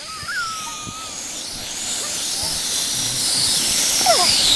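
A sled sliding fast over an ice-covered road, a scraping hiss that grows steadily louder as it comes closer.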